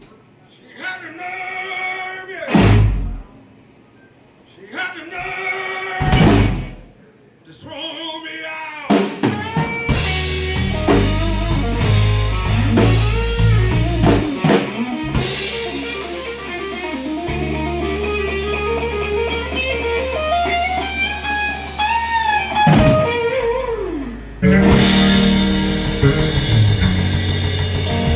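Blues-rock band playing with guitar, drum kit and singing. The first several seconds are separate hits with gaps between; the full band comes in about nine seconds in, breaks off briefly near the end, and comes straight back.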